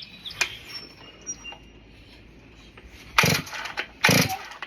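Two quick pulls on the starter cord of a Holzfforma G660 Pro two-stroke chainsaw, each a short loud burst about half a second long, about three and four seconds in. Before them, faint bird chirps.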